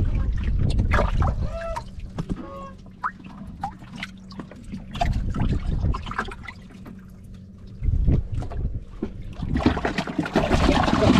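Water sloshing, splashing and trickling in a boat's flooded live-fish hold, stirred by the caught fish moving in it, with louder splashing near the end.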